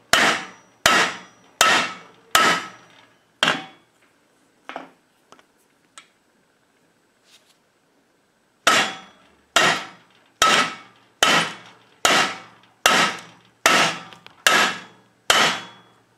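Hammer blows pounding soft lead balls flat into discs on the anvil of a steel bench vise. The blows come at a steady pace of a little more than one a second, each with a short ring: five, then a pause of a few seconds with light taps as a new ball is set down, then a run of about nine more.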